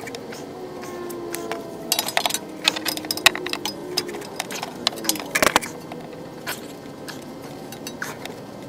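Metal clinking and rattling of a socket wrench and the oil drain plug being worked out of a generator's sump, in scattered sharp clinks, densest about two seconds in and again past the middle.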